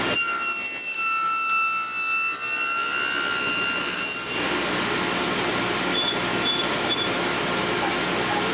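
Table saw running, cutting box joints in wooden boards held in a sliding box joint jig. A high whine with overtones holds for the first four seconds or so, then gives way to the saw's steady running noise.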